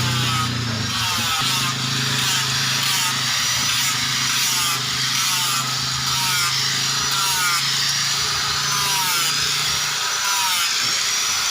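Steel blade cut from a chainsaw guide bar being abraded in repeated rasping strokes, about one a second. A low steady hum runs underneath and fades out near the end.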